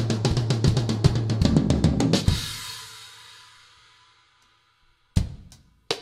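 Drum kit played in a fast, dense run of strokes on drums and bass drum, ending a little over two seconds in on a cymbal crash that rings away into near silence. Single, spaced-out drum hits start again near the end.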